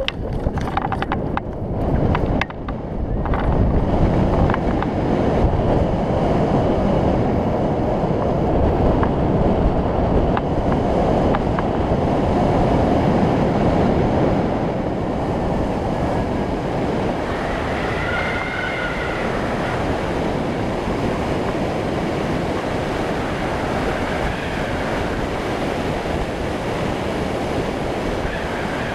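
Rushing wind buffeting the microphone of a camera mounted on a hang glider in flight, a steady roar of airflow. In the first few seconds, during the foot launch, a few sharp knocks sound over the building wind.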